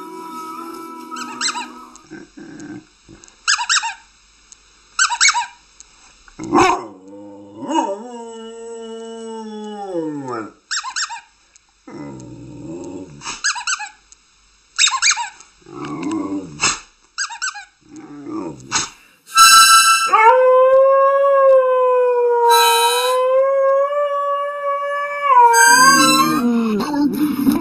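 Several dogs howling in turn: long pitched howls that bend up and down, broken by shorter yelping calls. The loudest is a long, high, wavering howl held for several seconds near the end.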